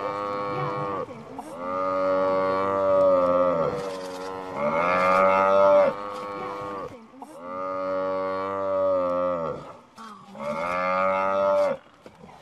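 African buffalo bellowing in distress while under lion attack: about five long, loud, drawn-out calls in a row, each dropping in pitch at its end.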